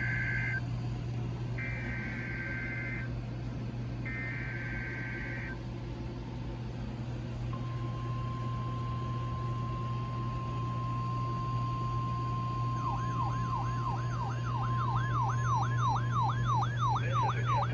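EAS SAME header from a NOAA Weather Radio broadcast: buzzy warbling digital data bursts, each about a second and a half long, ending about five seconds in. Then the steady 1050 Hz weather radio warning alarm tone sounds. About thirteen seconds in, a weather radio receiver's alert siren starts, sweeping up and down about three times a second, over a constant low hum.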